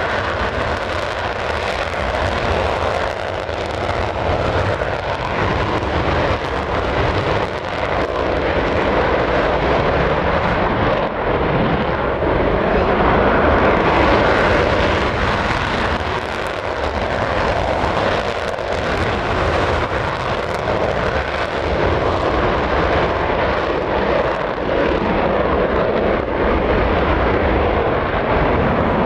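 Twin jet engines of a McDonnell Douglas F-15 running as the fighter taxis, giving a loud, steady jet roar.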